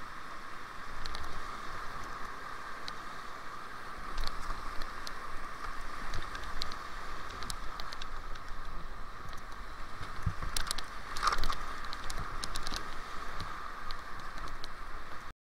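Whitewater rapids rushing around a kayak, a steady noise of churning water with scattered sharp splashes and clicks that bunch together about eleven seconds in. The sound cuts off suddenly just before the end.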